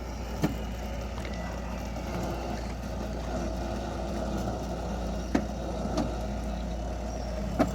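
Steady engine drone, with four sharp knocks spread through it.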